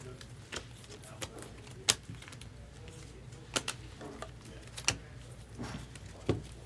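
Glossy Topps Chrome trading cards being flipped and slid against each other in the hand: a string of sharp, irregular clicks and snaps of card stock. Near the end comes a duller tap as cards are set down on a stack, over a low steady hum.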